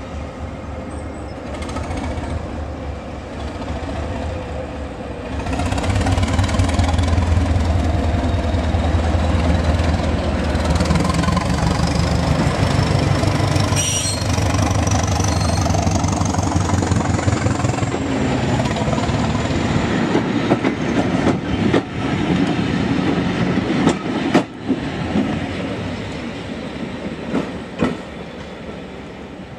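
Class 205 'Thumper' diesel-electric multiple unit, its English Electric four-cylinder diesel running and opening up about five seconds in as the unit pulls away and passes close by with a rising whine. In the last third the wheels click over rail joints and pointwork as it draws off and the sound fades.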